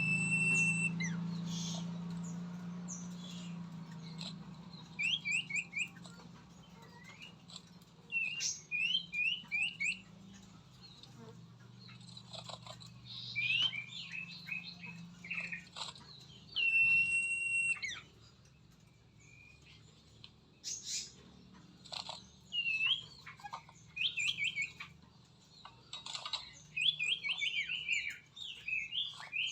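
Birds chirping and calling: short chirps and quick runs of repeated notes, with a long steady whistled note at the start and again about 17 seconds in. A low hum fades away over the first ten seconds or so.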